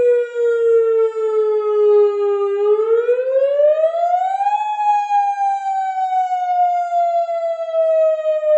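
Tsunami warning siren wailing: one steady tone that sinks slowly, swings up in pitch over about two seconds starting a third of the way in, then slowly falls again.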